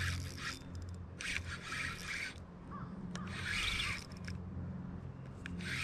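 Spinning reel being cranked to retrieve a cast jig, a soft rubbing whir that comes in several short spells.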